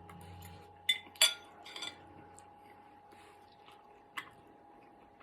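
Eating utensil clinking against a dish of instant noodles: two sharp clinks about a second in, the second the loudest, a softer one just after, and another near four seconds.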